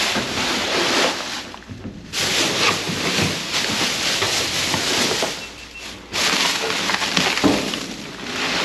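Plastic garbage bags rustling and crinkling as they are pushed aside and rummaged through, in an uneven, noisy stream that drops out briefly twice.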